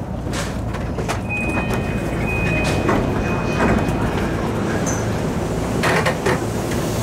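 Electric commuter train of the JR Nambu Line: a steady low rumble with scattered clicks and knocks, a high steady tone lasting about two seconds early on its way, and a short hissing burst about six seconds in.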